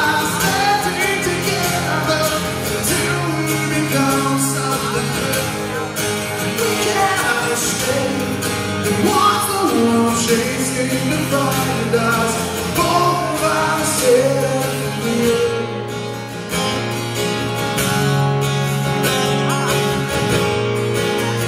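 Live male lead vocal sung over a strummed acoustic guitar, a slow rock ballad.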